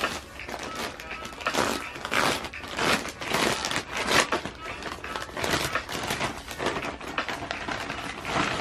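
Plastic garment bag crinkling and rustling in irregular bursts as a hoodie is handled and pulled out of its packaging.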